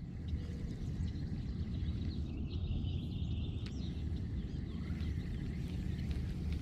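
Steady low outdoor background rumble with faint bird chirps now and then.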